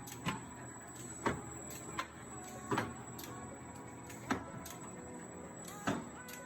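Eaton Fuller 18-speed truck transmission running on a test with a steady whir, and about six sharp clicks at uneven spacing as gears and the splitter are shifted. It is shifting without grinding.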